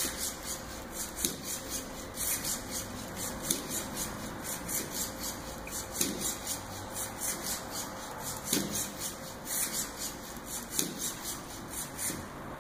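The servos of a Lynxmotion CH3-R hexapod robot are buzzing in quick, rhythmic pulses as it walks. A soft knock comes about every second and a bit.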